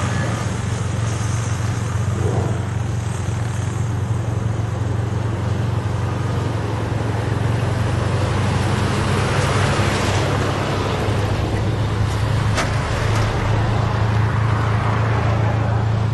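Steady motor-vehicle engine hum under an even rushing noise.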